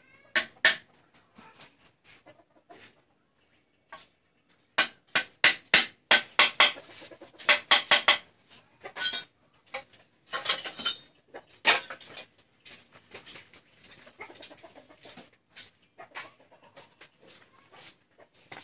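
Sharp metallic clicks and snaps from a hand rivet gun being squeezed on a motorcycle muffler's steel casing: a quick run of about four clicks a second in the middle, with scattered snaps before and after.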